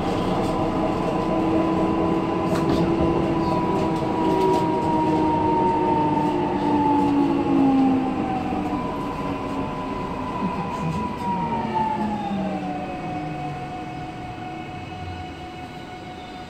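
Korail 331000-series electric train with IGBT VVVF inverter drive, heard from inside the car: the inverter and traction motor whine falls steadily in pitch over rolling rumble as the train slows, growing quieter in the last few seconds.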